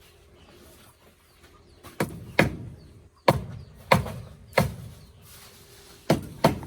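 Hammer blows on wood: about seven sharp knocks at uneven spacing, in two clusters.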